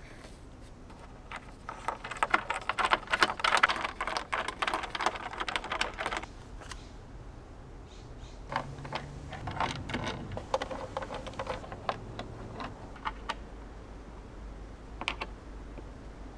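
Rapid clicking and tapping of hand tools and hardware being worked on a wing foil board: a dense clatter of clicks for a few seconds, then scattered single clicks.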